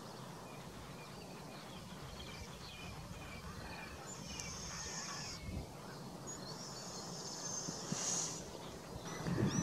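Skylarks singing: a continuous scatter of high chirps with longer high trills, over a steady low rumble of wind on the microphone.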